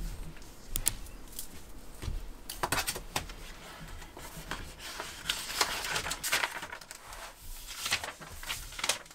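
Hardcover notebook handled on a desk: the cover opened and paper pages turned, with scattered rustles and light taps.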